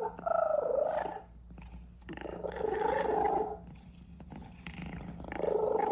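A cat purring loudly and roughly in three long stretches, with quieter pauses for breath between them.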